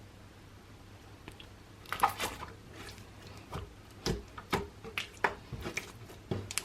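Clear-glue slime being squished and stretched by hand, giving irregular sticky clicks and pops that start about two seconds in.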